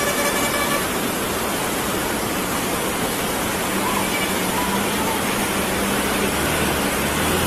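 Loud, steady rush of muddy floodwater pouring across a mountain road, with a bus engine running underneath.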